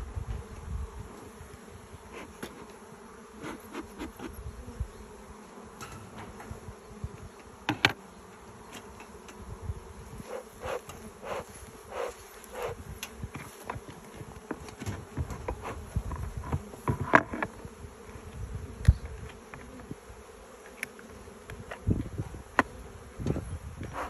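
A swarm of honeybees flying around beehives, a steady buzzing hum, with scattered short knocks and clicks, a few louder ones near 8 seconds and 17 seconds in.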